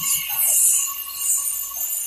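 Several geared steam locomotives working together, their exhaust chuffing in hissy puffs roughly once a second over steady metallic ringing tones.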